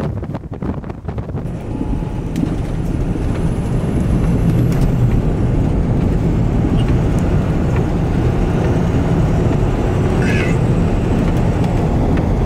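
Car driving at speed, with steady road and engine noise that builds over the first few seconds and then holds. Wind gusts against the microphone at the start.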